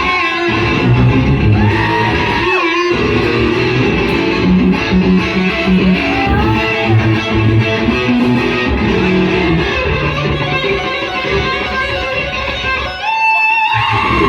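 Electric guitar played live through an amplifier, a rock-style instrumental with sustained notes and string bends that rise and fall in pitch. The playing stops briefly a few times, once near the end.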